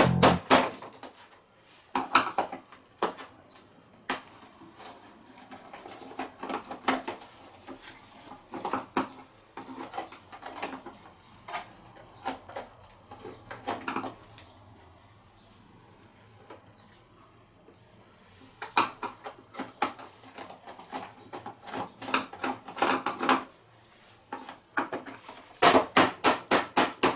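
Irregular metallic clinks, taps and knocks of hand tools and small parts against the bodywork of a Honda Spacy 125 scooter. Someone is trying to get free a loose screw that has dropped inside the body. The sounds thin out midway and end with a quick run of taps.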